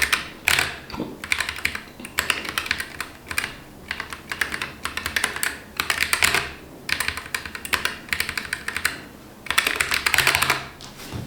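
Typing on a Keychron K11 Pro low-profile mechanical keyboard with Gateron low-profile Red linear switches: quick runs of key clicks in bursts of a second or two, with short pauses between them.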